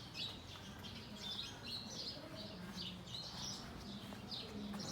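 Small birds chirping: quick, high calls several times a second, over a faint low hum.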